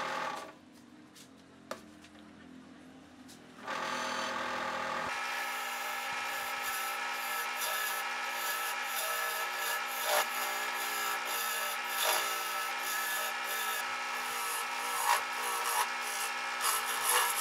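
Wood lathe running with a steady whine, with sandpaper rubbing against the spinning wooden workpiece as it is sanded, giving short scratchy peaks. The steady sound starts about four seconds in.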